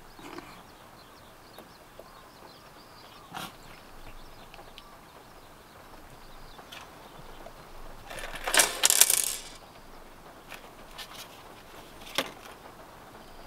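Scattered light clicks, then a brief burst of metallic clinking and jingling lasting about a second, like small hard objects knocking together, with one more click near the end.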